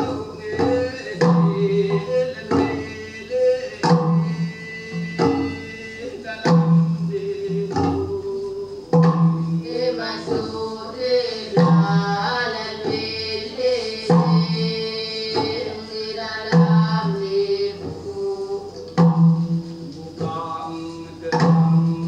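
Field recording of a Temiar healing ceremony: bamboo stamping tubes struck on the ground in a slow, steady rhythm, each stroke giving a low pitched knock, while the medium sings the healing song (noñ) with a chorus of voices.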